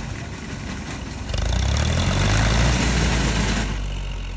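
Tractor engine running with its front-mounted wheat reaper. About a second in, a louder rushing noise and a heavier engine rumble rise and hold for about two seconds, then ease back to a steady engine hum.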